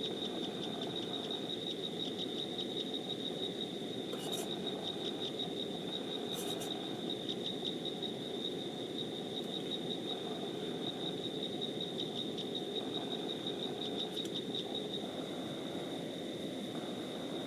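An insect, cricket-like, trilling steadily at one high pitch in rapid pulses, over a steady low rushing noise. Two short high bursts sound about four and six and a half seconds in.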